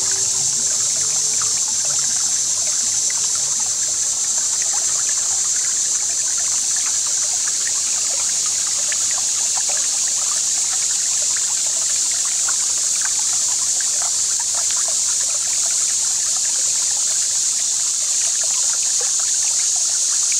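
Water trickling and lightly splashing around a kayak moving on a calm river, in many small irregular drips, over a steady high hiss.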